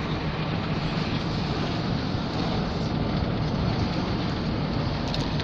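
Pickup truck driving slowly, its engine and road noise heard as a steady rumble from inside the cab.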